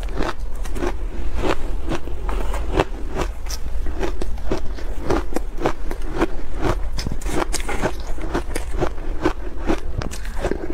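Ice chunks coated in matcha powder being bitten and chewed: a dense, irregular run of sharp crunching cracks.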